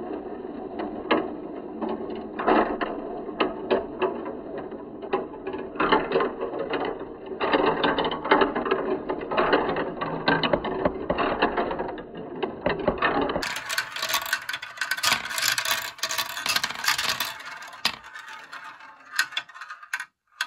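Marbles rolling and rattling through a Kumon Kumikumi Slope plastic marble run: a continuous rolling rumble from the spiral funnel, dotted with many small clicks as they knock against the plastic pieces. About two thirds of the way in the sound turns brighter and sharper, with denser clicking.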